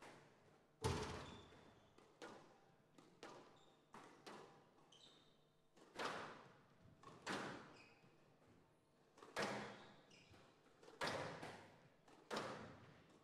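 Squash ball being hit back and forth between two rackets and off the front wall, a sharp smack roughly once a second, each one echoing in the hall.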